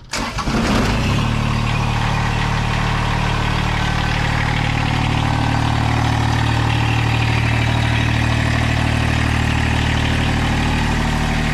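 Kubota compact tractor's diesel engine started cold after a glow-plug preheat: it cranks briefly, catches within about a second, and settles into a steady idle.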